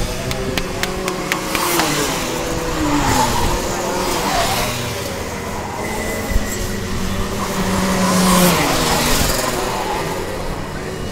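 Several Rotax Mini Max 125 cc two-stroke kart engines racing past, their pitch dropping as each goes by. The loudest pass comes about eight seconds in, and a few sharp clicks sound in the first two seconds.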